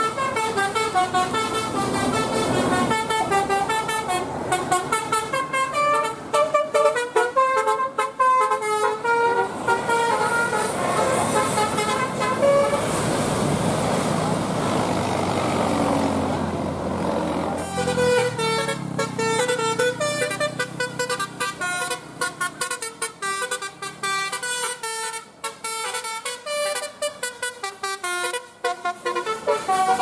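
Basuri telolet bus horn playing a quick multi-note tune, the notes stepping rapidly up and down. The tune breaks off for a few seconds near the middle under vehicle engine and road noise, then starts again.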